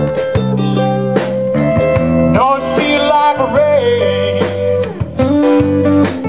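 Live rock band playing a slow blues ballad: electric guitar, bass guitar and drum kit, the drum strikes keeping a slow, even beat.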